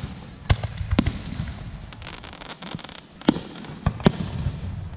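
Aerial firework shells bursting: five sharp bangs, two close together about half a second and a second in and three more near the end, with a stretch of light crackling between them.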